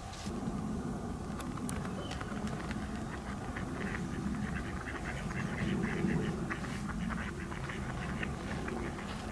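Brown rats rustling and nibbling in grass and dry leaves: many small, irregular clicks and crackles. Under them runs a low, uneven sound that swells and fades every second or so.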